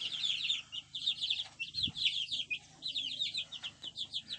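A flock of young chickens peeping: many short, high, downward-sliding peeps overlapping one another without pause.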